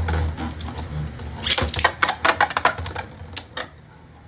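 Twister Pandora and Gambit Dragon Beyblade Burst tops spinning in a plastic stadium just after launch. About a second and a half in comes a rapid run of clicks and clacks as they collide with each other and the stadium wall, thinning out to a few sharp knocks.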